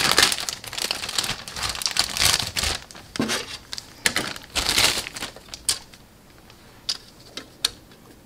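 Plastic parts bag crinkling and rustling as the kit's plastic sprues are handled, followed by a few light clicks and taps in the last few seconds.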